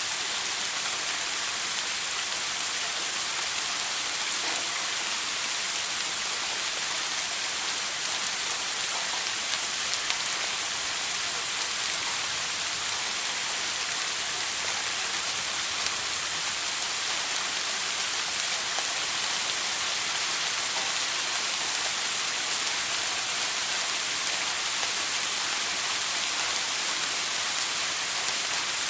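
Shower water running steadily, an even spray hiss with no breaks or changes.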